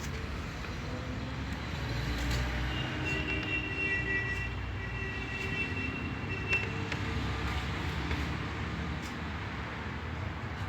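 Background road traffic, a steady low rumble, with a high thin whine for about three seconds starting a few seconds in.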